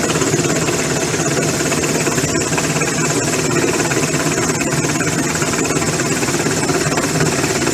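Rescue helicopter hovering over the ship: loud, steady engine and rotor noise.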